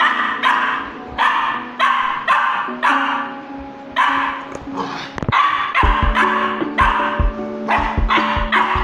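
Small dog barking over and over, about two barks a second, over background music whose low beat comes in about two-thirds of the way through.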